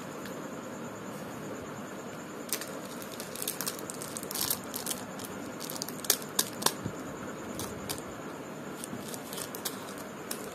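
Plastic candy wrappers crinkling and rustling as they are picked up and handled, with three sharp clicks close together about six seconds in, over a steady background hiss.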